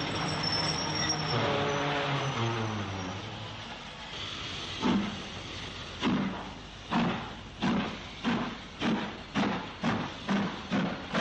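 LMS 2-6-4 tank steam locomotive starting away, its exhaust beats beginning about halfway through and quickening from about one to about two a second. Before that, a steady hiss with a low hum that slides down in pitch.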